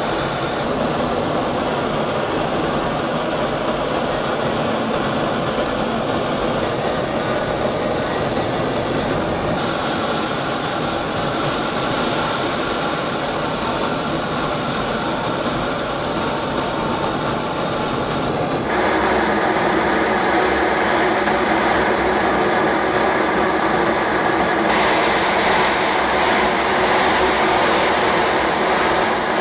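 KAI KF-21 Boramae fighter's twin F414 turbofan jet engines running with a steady rushing noise. The sound changes abruptly several times and gets louder about two-thirds of the way through.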